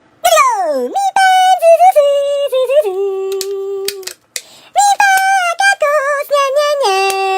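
A high, voice-like sound held on steady notes that step between a few pitches, with a quick downward slide at the start and a long low held note near the end: sung or vocalised tones with a thin, synthetic edge.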